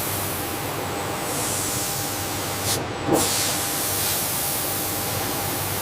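Steady hiss of factory machinery, with faint steady hums under it and a brief change in the sound about three seconds in.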